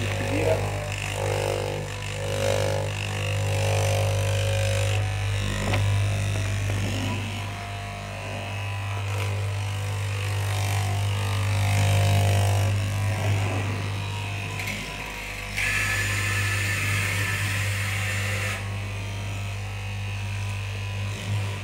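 Electric straight-knife cloth cutting machine running with a steady motor hum, with a brighter hiss for about three seconds past the middle.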